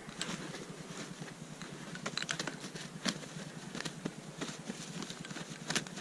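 Canada goose struggling while held up by the neck: its wings flap and its feathers rustle in scattered, irregular light taps and rustles.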